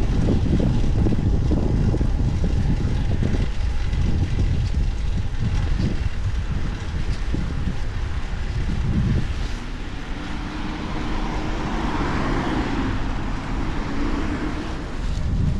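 Wind buffeting the camera's microphone as it rides along on a moving bicycle, gusting heavily for the first nine seconds or so and easing after. From about ten seconds in, a motor vehicle's hum swells and passes.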